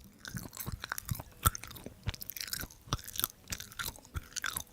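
Close-miked chewing of a soft, chewy waxy-corn food, with irregular wet mouth clicks and smacks.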